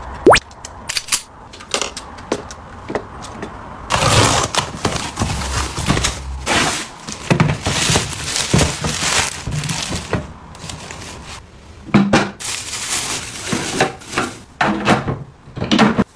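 Sharp plastic clicks and taps, the loudest a snap just after the start, then clear plastic film wrapping crinkling and rustling as it is pulled off a plastic bin, then more plastic knocks and clicks near the end as a push-open lid is pressed.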